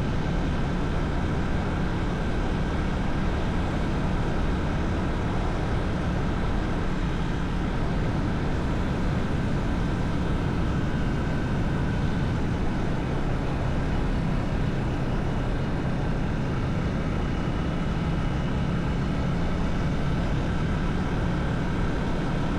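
Motorcycle running at a steady cruising speed, its engine drone mixed with road and wind noise.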